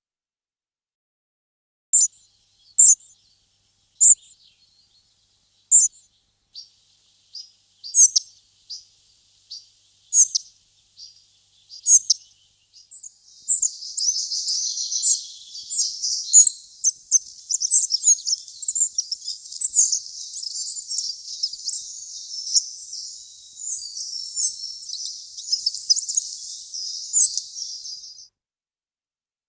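A small songbird calling: single short high notes about once a second, then from about halfway in a dense, fast run of high twittering song.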